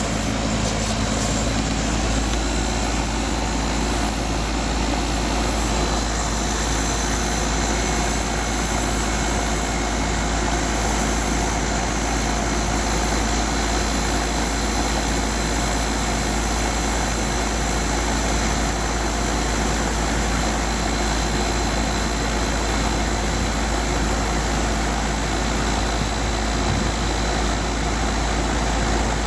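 Outdoor air-conditioning condensing unit running steadily, its compressor and fan working through a pump down: the liquid line is shut, so the refrigerant is being pulled back into the outdoor unit.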